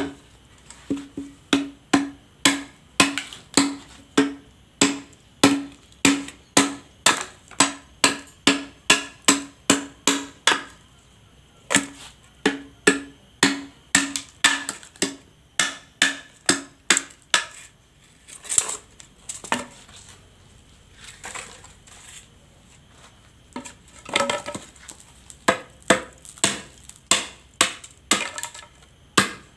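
A hand-forged golok, made from a scrap bearing race, chopping repeatedly into wet bamboo at the nodes to test how well the edge holds. The sharp chops come about two a second, each with a short ringing note, in runs broken by a pause about halfway through.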